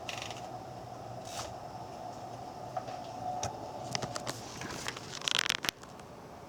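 1938 Royal Aristocrat manual typewriter being handled: a few scattered sharp mechanical clicks, then a quick rattling run of clicks about five seconds in, over a faint steady hum.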